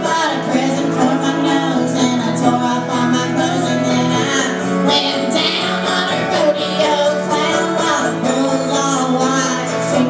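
Live amplified folk-style song: female vocals over a strummed acoustic guitar and a mandolin.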